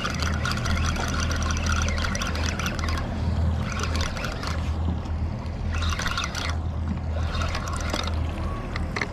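Spinning reel cranked hard in spurts while fighting a hooked fish, its gears whirring and clicking with each run of turns, over a steady low hum.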